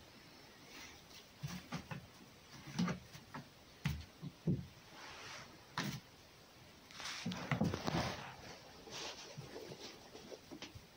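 A red fox scampering about a straw-floored pen: scattered paw thumps and knocks, then a longer stretch of scuffling about seven seconds in.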